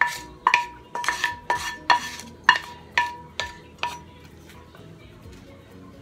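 Wooden spatula knocking and scraping corn out of a metal skillet, about two knocks a second, each with a short metallic ring from the pan. The knocking stops about four seconds in.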